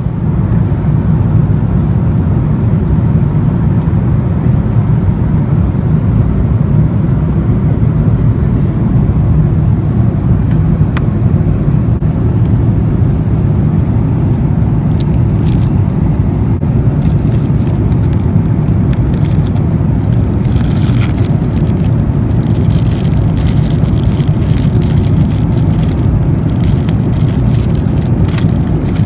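Steady, loud low rumble of a vehicle in motion, heard from inside it, with scattered light rattling clicks that thicken in the second half.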